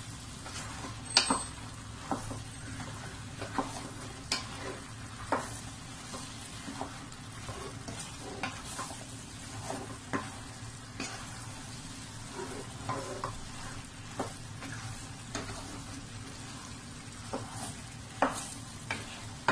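A wooden spatula stirring minced chicken, diced carrots and potatoes in a stainless steel pot, knocking and scraping against the pot about once a second over a steady sizzle of the food frying.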